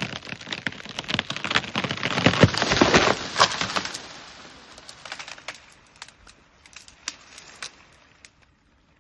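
A bare tree's trunk and branches cracking and splintering as an elephant pushes it over: dense crackling and snapping, loudest about two and a half to three and a half seconds in, then scattered snaps of branches that thin out over the next few seconds.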